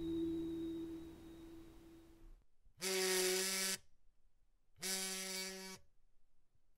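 A held musical tone fades out. Then an alarm clock buzzer sounds twice, each buzz about a second long with a short pause between.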